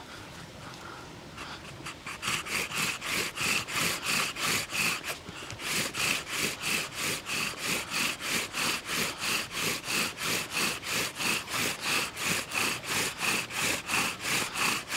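Bow drill at work: a water-soaked wooden spindle grinding back and forth in a hearth board in a steady rhythm of about three strokes a second, starting about two seconds in, with a brief pause midway. It is driven with only light downward pressure to dry the wet hole with friction heat before real drilling.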